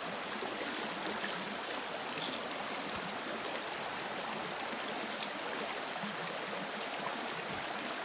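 Small rocky mountain creek running over stones: a steady rushing of water from riffles and a little cascade.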